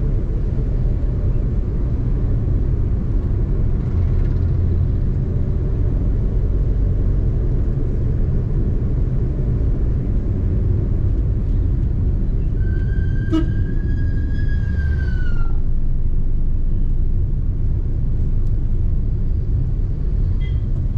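Steady low rumble of a car's engine and tyres on the road, heard from inside the cabin while driving. A little past halfway a long high tone with overtones sounds for about three seconds and dips in pitch as it ends. A sharp click comes near the start of the tone.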